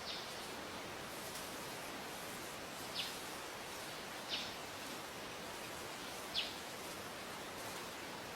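A bird giving short, high, downward-falling calls four times, spaced a few seconds apart, over a steady background hiss.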